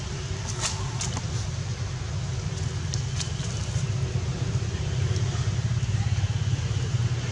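A steady low rumble that grows slightly louder toward the end, with a few short, faint high clicks about a second in and again about three seconds in.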